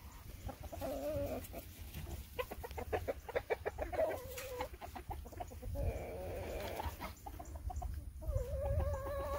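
Chickens clucking and calling: a quick run of clucks about two seconds in, and several drawn-out calls, the longest near the end.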